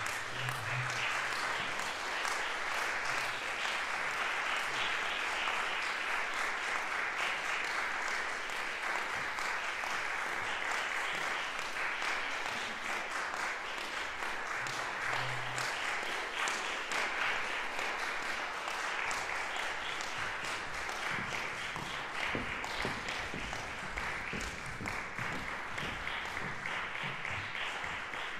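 Audience in a concert hall applauding steadily.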